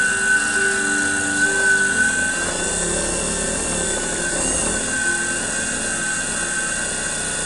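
King Industrial KWL-813VS variable-speed wood lathe running at speed with a steady high whine, spinning a finished bowl while wax is buffed onto it with a cloth.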